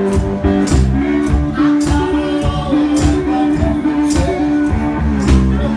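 A blues band playing live: drums keep a steady beat under long held melody notes.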